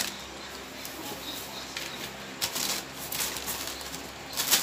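Plastic packaging and paper rustling and crinkling as they are handled, in a few short bursts with the loudest near the end, over a faint steady low hum.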